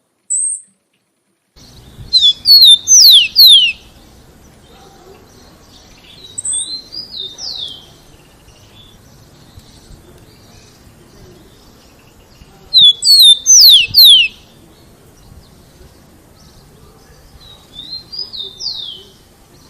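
Rufous-collared sparrow (tico-tico) singing loud phrases of clear whistled notes that slide downward, heard twice. Softer, shorter song phrases come in between.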